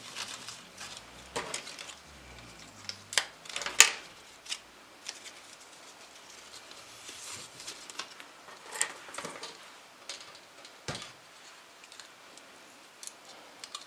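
Salal leaves rustling as hands push their stems into wet floral foam in a plastic tray: scattered light rustles and clicks, the sharpest a little under four seconds in.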